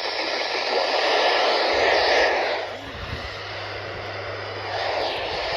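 Static hiss from a weather radio receiver on a weak signal. A low steady hum comes in about two seconds in and drops out near the end.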